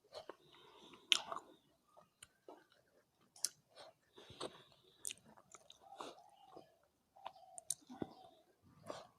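Close-up mouth sounds of someone eating curry and rice: irregular wet chewing, lip smacks and small clicks.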